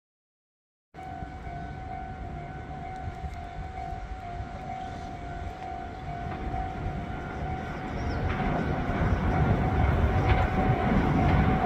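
Meitetsu electric train approaching: after about a second of silence, a steady high tone holds over a low rumble that grows gradually louder.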